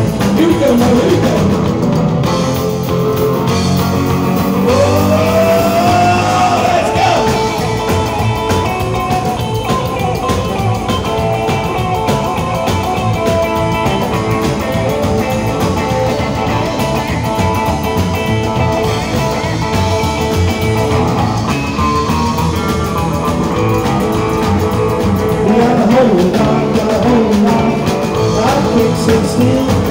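A live rock and roll band playing loud: electric guitar, drums and keyboard, with a man singing into a handheld microphone at times.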